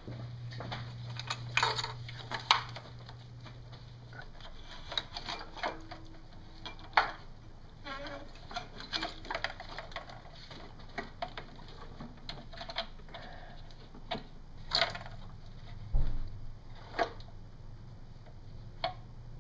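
Scattered light clicks, taps and knocks of metal and plastic as a 4.7 V8's fuel rail and injectors are handled and lifted in the engine bay, with one heavier thump near the end. A low hum runs underneath and stops about four seconds in.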